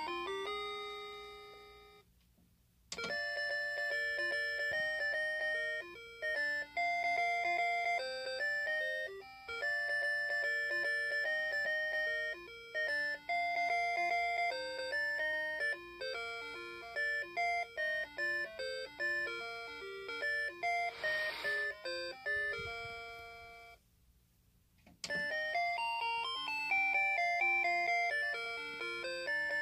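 Pokémon (Japanese Pocket Monsters) cuckoo clock playing its electronic chime melodies. One tune ends about two seconds in and a new one starts a second later; after another brief pause, a further tune begins about five seconds before the end.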